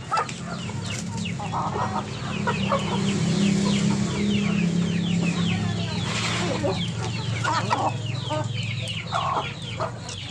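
A flock of Siamese gamefowl chickens clucking as they peck at feed, with a dense run of short, high, falling chirps throughout and a few louder clucks. A low steady hum runs underneath.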